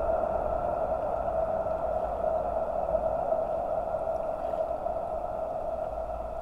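Fixed-spool fishing reel whirring as its handle is cranked steadily to wind line in on a feeder rod, an even, unbroken hum.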